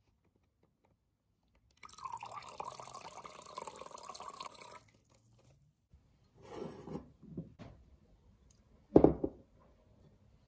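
Dry white wine poured into fish stock in a glass measuring jug, a steady pour of about three seconds. Brief handling sounds follow, then a single loud knock near the end.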